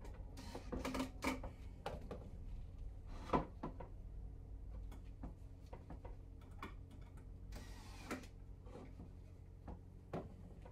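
DeWalt cordless drill running in short bursts as it drives screws into a wooden drawer box, with clicks and knocks of the wood being handled; a sharp knock about three seconds in is the loudest sound.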